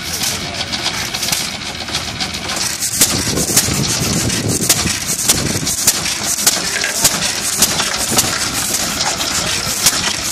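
The single-cylinder gas engine of an early Jacobson friction-drive tractor is running. From about three seconds in it settles into sharp, regular exhaust beats, just under two a second.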